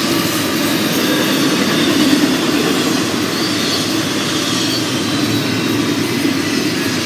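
Double-stack intermodal well cars rolling past on jointless track: a steady rumble of steel wheels on rail.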